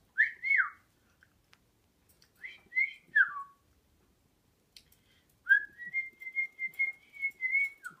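Cockatiel whistling in three phrases: two quick up-and-down notes, then three notes ending in a downward slide, then a long held warbling whistle that drops in pitch at the end.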